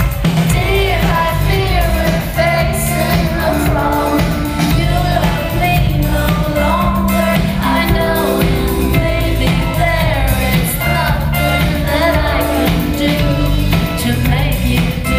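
Live pop band playing: a woman singing into the microphone over bass, electric guitar and drums, heard loud and full from among the audience.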